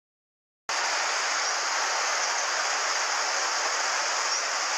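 Steady rush of a mountain headwater stream running over rocks and small cascades, starting abruptly under a second in after a moment of silence.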